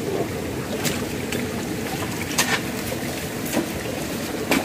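Stream water running among rocks, with several short sharp clicks over it.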